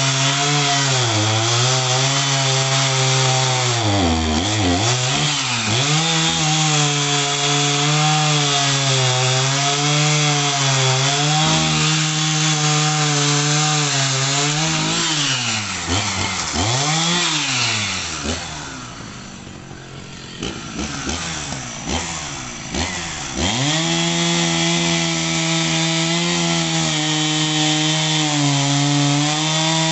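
Two-stroke chainsaw running at high revs, cutting eucalyptus logs, its pitch dipping several times as the chain loads up in the wood. About two-thirds of the way through it drops to a quieter idle for a few seconds, then revs back up.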